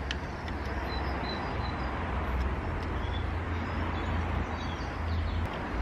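A steady low rumble with a fainter even hiss above it, easing about five and a half seconds in, and a few faint bird chirps high above.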